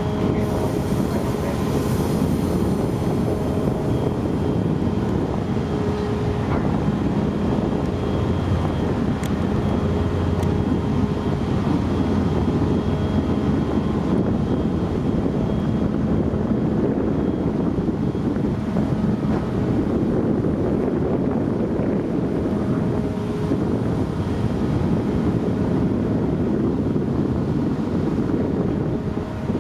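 Large ferry's machinery running during berthing: a steady deep rumble with faint hums that come and go. Wind buffets the microphone.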